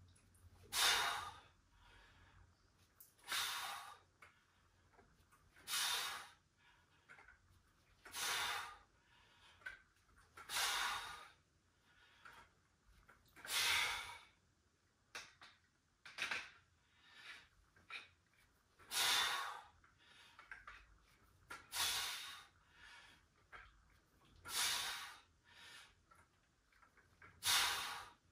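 A man breathing out hard with each rep of a dumbbell chest exercise: a hissing exhale about every two and a half seconds, with fainter breaths between.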